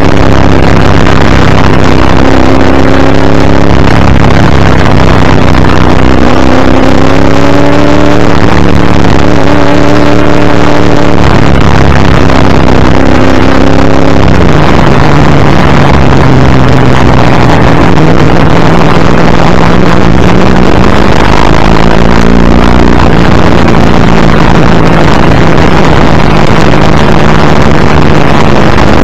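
Group C Ford Falcon's V8 racing engine under hard load, very loud, its pitch rising and falling several times through gear changes and lifts, over heavy wind and road noise at the front bumper.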